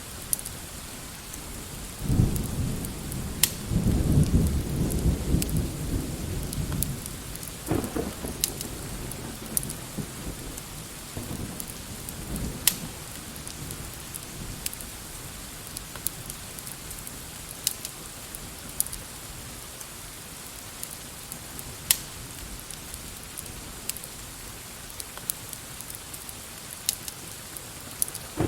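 Steady rain hissing, with a low rumble of thunder rolling in about two seconds in and fading out by about seven seconds, then weaker rumbles. Scattered sharp crackles sound throughout.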